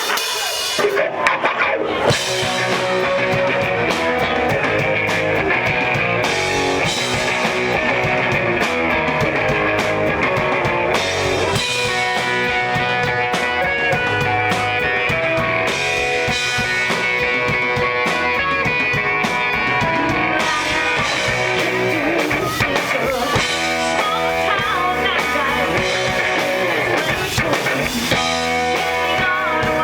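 Rock band playing live, with guitars and drum kit, at a steady full volume.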